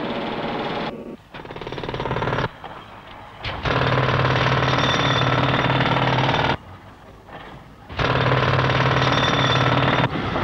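Powered spike drivers hammering iron spikes into hardwood sleepers, a rapid jackhammer-like hammering. It comes in four bursts, the longest about three seconds, with quieter gaps between them.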